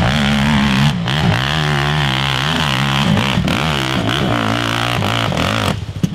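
Quad (ATV) engine revving hard on a steep dirt hill climb, the revs wavering up and down as the rider works the throttle; near the end the engine sound drops away sharply.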